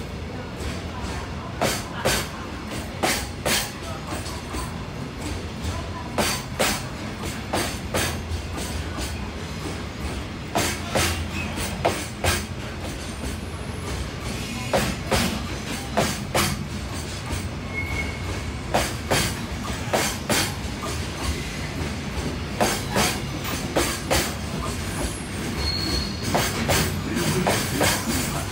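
A container freight train rolling past. Its wheels click over the rail joints in a steady run of paired clicks over a low rumble, with a couple of faint, brief wheel squeals.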